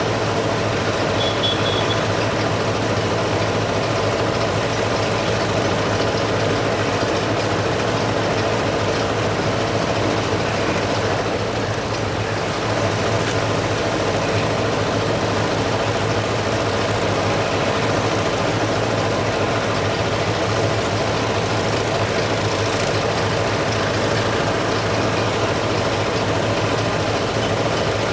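Steady drone of heavy diesel engines running at idle, with a low steady hum throughout. A short high-pitched beeping, like a reversing alarm, sounds briefly about a second and a half in.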